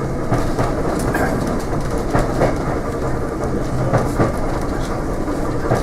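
Great Western Railway steam railmotor No. 93 running along the line, heard from on board: a steady rumble and rattle of the carriage, with scattered clicks, some in close pairs, as the wheels cross rail joints.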